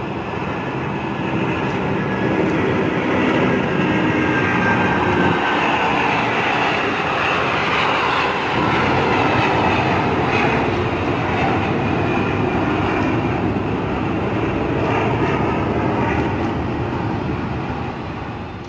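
Jet airliner taking off just after rotation, its engines at takeoff power: a loud jet roar that builds over the first few seconds, holds, and fades near the end, with a thin whine over it early on.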